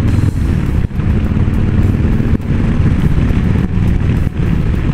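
Motorcycle engine running while riding along at road speed, heard from the bike itself, with the sound dipping briefly three times.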